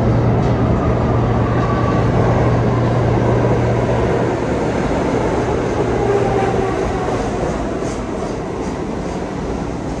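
New York City 1-line subway train pulling into the station: a continuous rumble and rattle of steel wheels on the track, with faint whines drifting in pitch. It grows gradually quieter through the second half.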